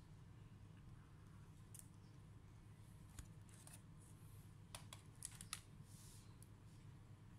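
Faint handling noises of a laptop repair: a few small plastic clicks and a brief crinkle as tape and a ribbon cable are worked on the palm-rest and keyboard frame, over a low steady hum.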